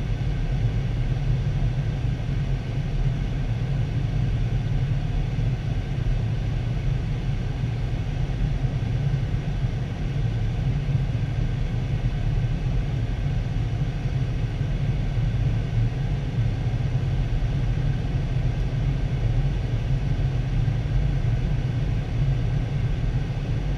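Steady, deep rumble of airflow and engines heard inside a Boeing 737 cockpit during the descent on approach to landing.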